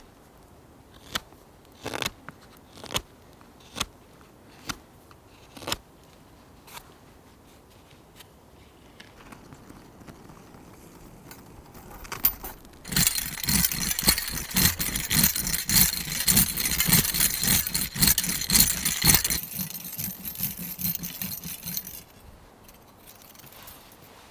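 A few sharp wooden knocks about a second apart, then a hand saw cutting through wood with quick rasping strokes for about six seconds, thinning out before it stops.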